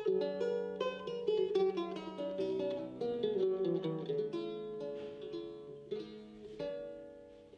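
A small plucked string instrument played solo: a quick melodic line of plucked notes ringing over held bass notes, fading out near the end.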